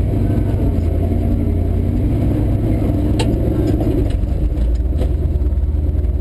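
Ford F100 pickup's engine running steadily at low trail speed, heard from inside the cab, with a few sharp knocks, the clearest about three seconds in.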